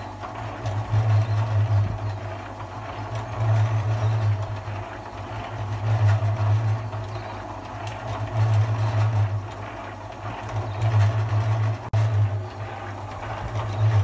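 Mini concrete mixer running, its motor humming as the drum turns, the hum swelling and fading about every two and a half seconds with each turn of the drum.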